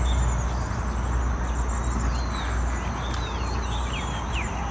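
Outdoor ambience: a low rumble of wind on the microphone under a steady high insect buzz, with a run of short bird chirps starting about two seconds in.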